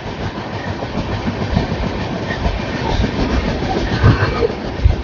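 Jnaneswari Express passenger train running, its wheels rumbling and clattering on the track, with a couple of heavier knocks about four and five seconds in.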